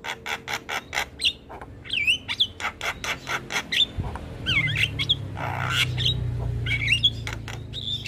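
Javan myna (jalak kebo) chattering: quick strings of sharp clicking notes mixed with short gliding whistles, and a harsh rasping call about halfway through. A low rumble sits underneath through the second half.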